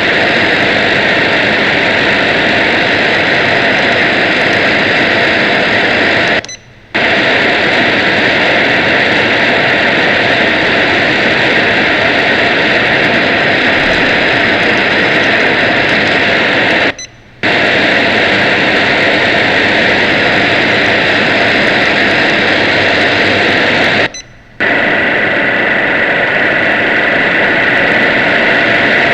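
Shortwave radio receiver giving a loud, steady rushing noise in place of the broadcast. The noise cuts out briefly three times.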